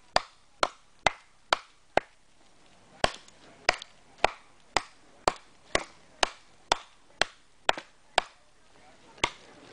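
An axe chopping into a log lying on the ground. About seventeen sharp strokes come roughly two a second, with two short pauses.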